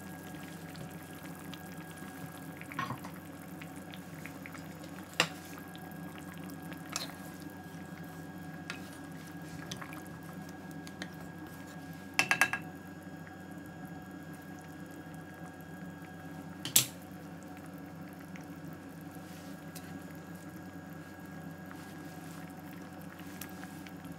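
Pot of aloo gosht curry simmering on a low flame: a steady low hum with a few scattered sharp pops and clicks, and a quick cluster of them about halfway through.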